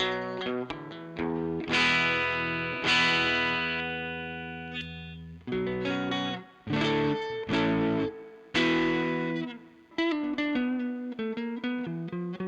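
Chinese copy of a Rickenbacker 325 electric guitar, fitted with Alnico 5 single-coil pickups and D'Addario Chromes strings, played through a 1978 Marshall 4140 amp with its original McKenzie speakers. Quick picked notes, then strummed chords left to ring and fade, a few sharp chord stabs, and a run of quicker notes near the end.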